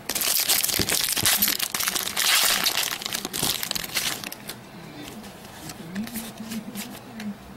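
Foil wrapper of a baseball card pack crinkling as it is torn open and crumpled, for about four and a half seconds. After that come quieter handling noises with a few light clicks.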